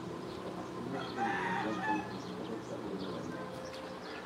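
A rooster crowing once in the background, starting about a second in and lasting under a second, over a steady low hum.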